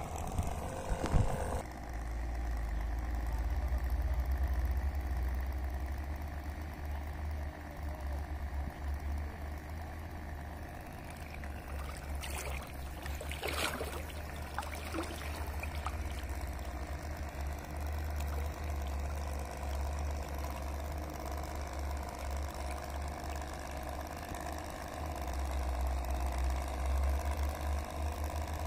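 Model air boat's small electric motor running steadily as it spins the plastic propeller, with a low wind rumble on the microphone. A brief loud knock about a second in.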